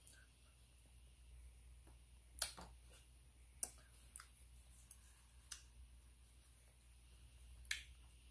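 Near silence broken by about six faint, sharp mouth clicks and smacks from someone chewing while eating food with her hands, the clearest about two seconds in.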